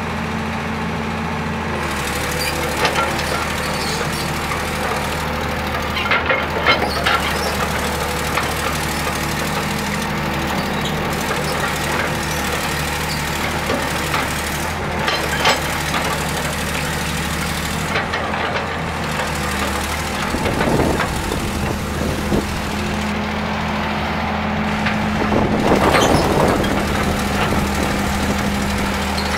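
Diesel engine of a 1997 John Deere 892E LC hydraulic crawler excavator running steadily as the machine works, its note shifting a couple of times as the hydraulics take load. Scattered short knocks come from the machine, and the engine is loudest near the end.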